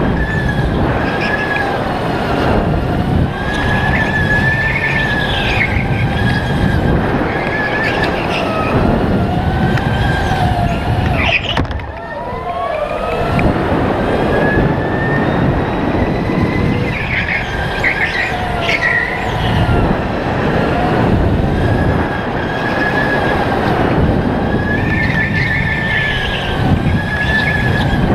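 Electric Sodi RTX kart at speed: the electric motor's whine rises and falls with every corner over a rough rumble of the chassis on the track, with tyres squealing in the turns. About twelve seconds in the sound drops briefly, then the whine climbs in one long rise as the kart accelerates.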